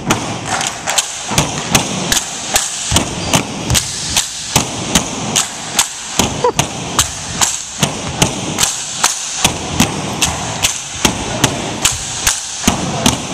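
Tinikling poles of grey plastic pipe beaten in a cross pattern, knocking on a wooden gym floor and against each other in a steady rhythm of sharp knocks, about two or three a second.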